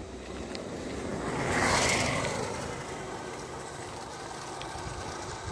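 Motorcycle passing close by on a cobblestone road, its engine and tyre noise swelling to a peak about two seconds in, then fading as it rides away.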